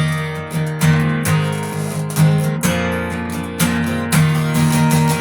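Acoustic guitar strummed in a steady rhythm, a stroke about every half second to a second, with the chords ringing between strokes: the instrumental close of a song after the last sung line.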